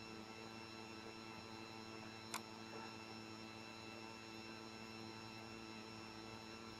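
Steady electrical hum with faint steady whining tones, and a single computer mouse click about two and a half seconds in.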